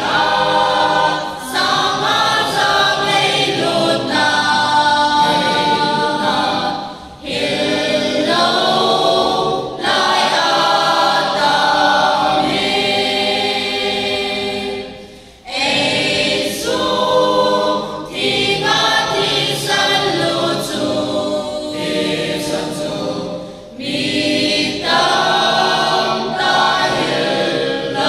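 A mixed choir of young men and women singing unaccompanied in long phrases, with short breaks between phrases.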